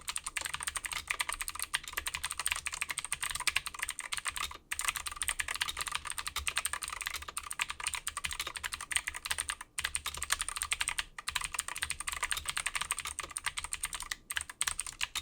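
HyperX Alloy Origins mechanical keyboard with clicky blue switches and pudding keycaps, typed on quickly and continuously while resting on a mouse pad. The dense clatter of clicks breaks off for a moment four times.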